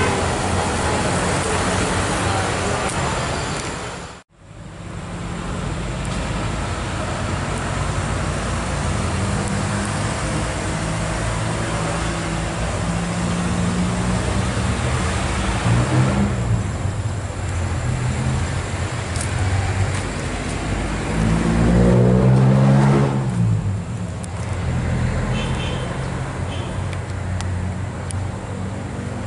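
Road traffic: a steady mix of vehicle engines and road noise, with one vehicle's engine rising and then falling in pitch as it passes, about three-quarters of the way through. The sound cuts out completely for a moment about four seconds in.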